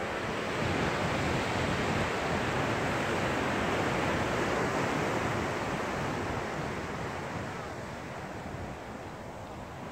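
Ocean surf washing onto the beach: a steady rushing that swells about half a second in and fades over the last few seconds.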